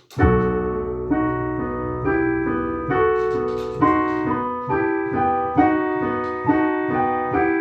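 Piano playing a slow, steady passage of sustained chords, a new chord struck about once a second.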